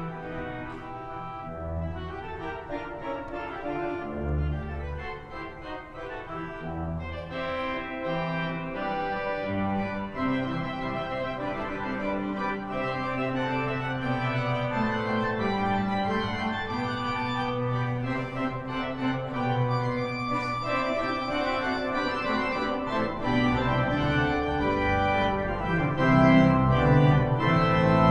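Pipe organ playing slow, held chords over deep pedal bass notes, building steadily louder toward the end.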